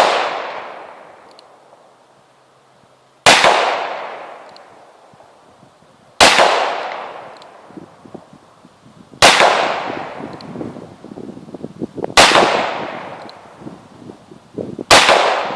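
Revolver fired five times at a slow, even pace, about three seconds apart, each shot a sharp crack followed by an echo that dies away over a second or two.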